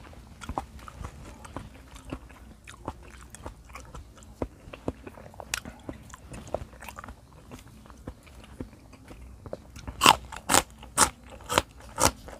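A man chewing a mouthful of raw beef liver and bitter melon close to the microphone: soft wet chewing clicks, turning into louder smacking crunches about two a second near the end.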